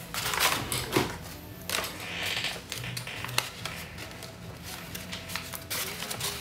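Brown kraft paper being handled and rustled by hand, with scattered light taps and a short crinkling swish about two seconds in. Soft background music plays underneath.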